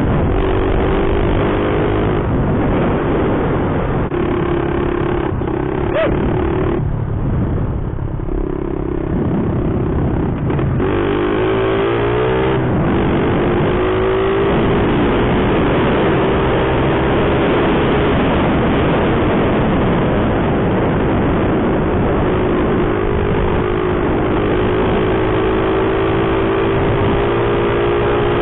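A Honda mini bike's small four-stroke single-cylinder engine running steadily under way, with wind and tyre noise on gravel. About eleven seconds in, the engine note dips and then climbs again as the throttle is eased and reopened.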